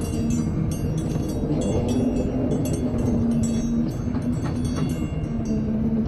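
Heavy diesel machinery, an excavator's engine, running steadily with a low drone. Short high-pitched metallic squeaks and clinks come and go over it throughout.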